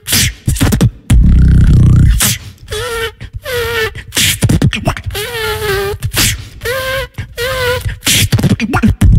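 Solo beatboxing into a handheld microphone: sharp kick and snare hits made with the mouth, a long deep buzzing bass about a second in, and wavering pitched vocal melody notes between the drum sounds.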